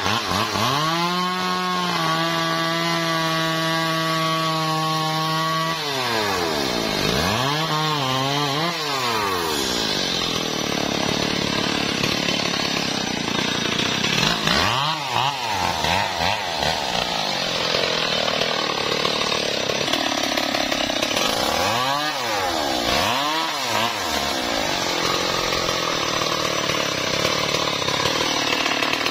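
Stihl MS 381 two-stroke chainsaw cutting a teak log at a steady pitch for about the first six seconds. After that it is revved up and down several times, with spells at high revs between the revs.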